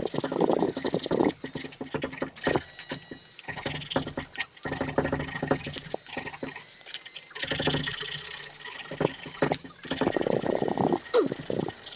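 Hand sanding a poplar crankbait blank held in a vise with 120-grit sandpaper: rough rubbing strokes in bursts of a second or two, with short pauses between.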